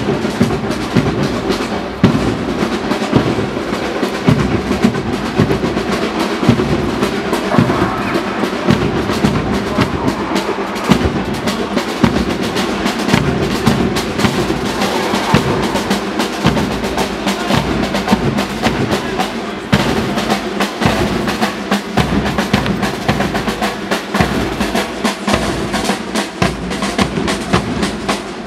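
Military band playing a march with brass and drums, the snare and bass drums beating sharply throughout, over the tramp of marching soldiers' boots.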